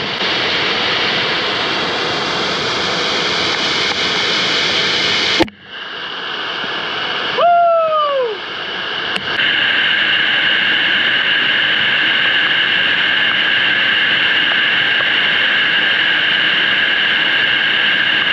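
Waterfall pouring into a rocky plunge pool, a loud steady rush of water. The rush drops out abruptly about five seconds in, returns, and changes tone at about nine seconds. Around eight seconds in there is a short cry that rises and then falls in pitch.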